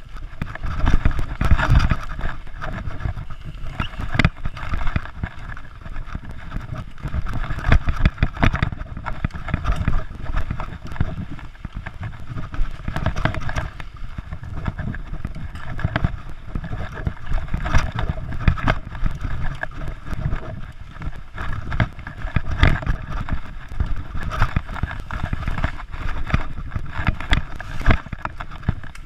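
Mountain bike ridden fast over a bumpy dirt trail: a continuous rumble of tyres on dirt, with irregular rattling and knocking from the bike as it jolts over roots and ruts.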